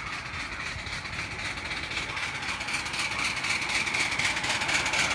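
Passenger-hauling miniature steam locomotive running along the raised track, getting steadily louder as it approaches, with a steady high-pitched tone over its running noise.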